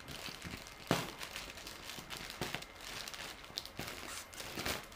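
Plastic wrapper of a Calciatori Adrenalyn XL trading-card megapack crinkling and rustling as it is handled and unwrapped, with irregular sharp crackles, the loudest about a second in.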